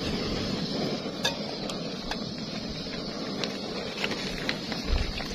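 Remote-canister gas camping stove burning with a steady hiss of gas and flame. A few light clicks sound through it, and a low knock comes near the end.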